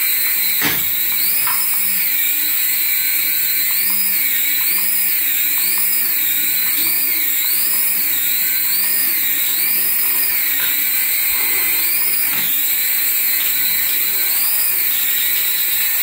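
Small coaxial toy RC helicopter's electric motors and rotors whining at high pitch. Through the middle stretch the pitch rises and falls in waves, about once a second, as the motor speed changes.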